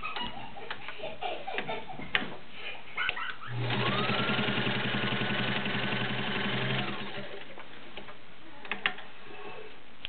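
Vintage Kenmore 1601 sewing machine running for about three seconds, stitching through a thick stack of about 14 fabric layers. Its motor tone rises as it comes up to speed and falls as it stops. Scattered light clicks and taps come before the run, and a couple of sharp clicks come after it.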